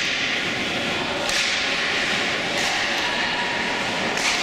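Ice hockey skate blades scraping and carving on the ice, with three sharp hissing scrapes over a steady rink background hiss.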